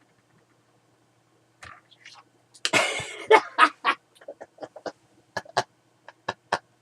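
A wooden pencil clicking and clattering against a hard surface in a run of sharp, separate taps, after a short scratchy burst about three seconds in.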